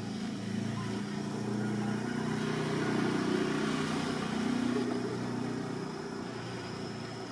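A motor vehicle's engine running as it passes by, growing louder to a peak about halfway through and then fading away.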